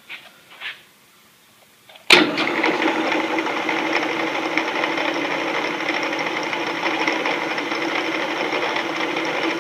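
Delta 28-303 wood/metal band saw's electric motor switched on about two seconds in and running steadily with an even machine hum, on its first test run after being rewired.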